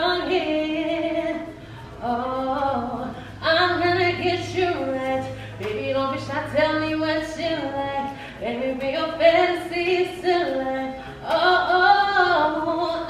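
A woman singing long, held melodic phrases into a microphone, with short breaths between them, over a live band of electric bass guitar and keyboard.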